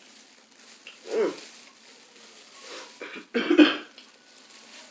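A person coughing, one short loud cough about three and a half seconds in, with a brief softer vocal sound about a second in.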